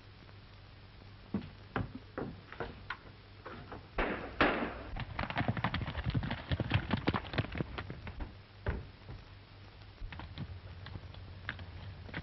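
Hoofbeats of several horses galloping, dense and loudest about four to eight seconds in, then thinning to scattered stamps as they pull up. A steady low hum and hiss of an old optical film soundtrack lie under it.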